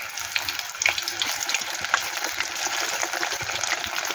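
Soya chunk kababs deep-frying in hot oil: a steady sizzle and bubbling, thick with many small crackles and pops.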